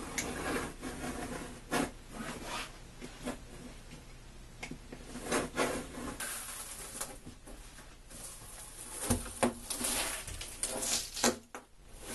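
Utility knife scoring the back of a tileboard (hardboard) panel: a series of rasping scrapes of varying length, several seconds apart and closer together near the end.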